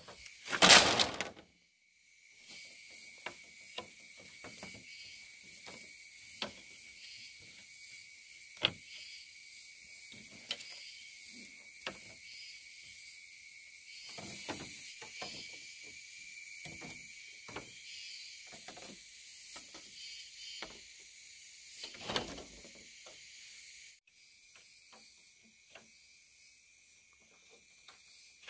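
Split bamboo slats clattering and knocking as they are set down and laid one by one onto a bamboo-pole floor frame, with a loud clatter as the bundle is dropped onto the frame about a second in. A steady high insect drone runs behind the knocks.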